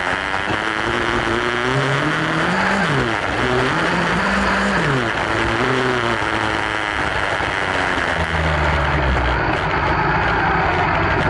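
Kawasaki ZX12R inline-four motorcycle engine in a kartcross buggy, running on avgas, revving up and down repeatedly for the first several seconds, then running at a steadier pitch, with a constant rush of wind and dirt noise over it.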